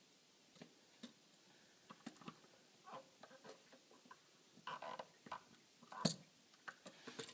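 Faint, scattered clicks and small rattles of angled needle-nose pliers and wire being worked into the back of an electrical outlet, with a louder click about six seconds in.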